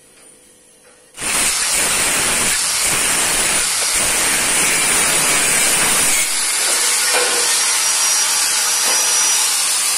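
Corded electric angle grinder cutting a light-steel (baja ringan) profile: a loud hissing, rasping cut that starts suddenly about a second in and keeps going, its deeper part dropping away about six seconds in.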